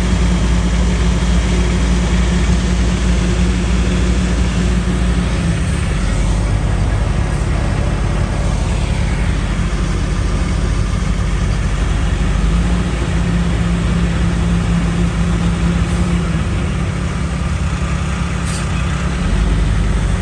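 Heavy diesel truck engine running steadily, its low note changing now and then.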